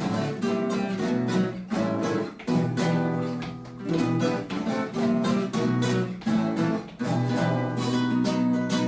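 Acoustic guitar music: a quick run of plucked and strummed chords with no singing.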